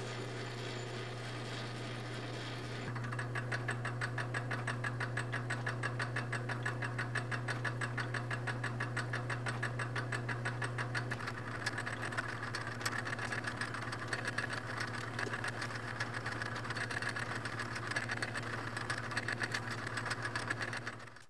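Metal lathe running with a steady motor hum while a copper electrode is turned and thread-cut. About three seconds in, a fast, even clatter joins the hum. The machine stops abruptly near the end.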